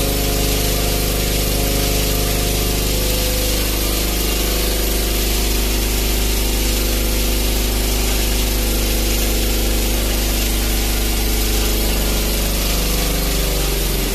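DEKES DH3800 gasoline generator engine running steadily under a heavy load of about 2,760 watts, close to its maximum. It is not sounding good: it is straining near the point where it can no longer hold the load.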